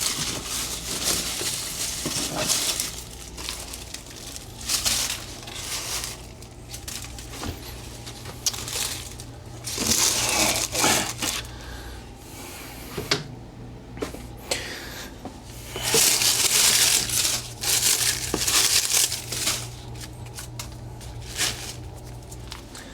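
Material crumpled, rustled and torn by hand in irregular bursts, loudest about ten seconds in and again from about sixteen to nineteen seconds, over a low steady hum.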